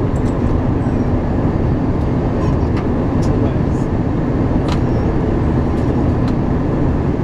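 Steady cabin noise of an Airbus A321 on approach, heard from a window seat over the wing: the jet engines and rushing airflow make a deep, even rumble, with a few faint ticks.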